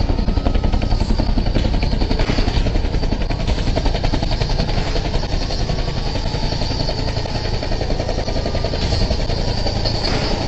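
Helicopter running steadily with a rapid rotor beat as it comes in to land.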